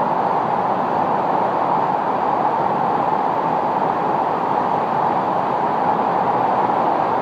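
Hurricane-force wind and driving rain: a loud, steady rushing that holds level throughout.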